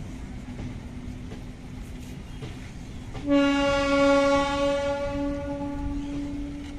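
A train rumbles past, and about three seconds in a train horn sounds one long, steady blast lasting some three and a half seconds.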